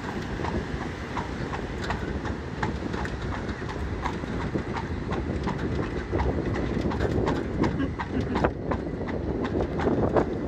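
Horse's hooves clopping on the road at a steady walking rhythm, about two to three a second, over the steady low rumble of the cart's wheels rolling.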